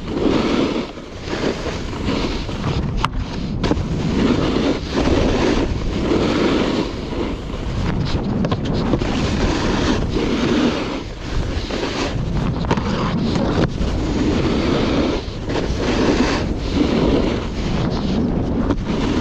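Wind buffeting the microphone during a snowboard run, with the board's edges hissing and scraping over the snow in surges every second or two. One sharp click about three seconds in.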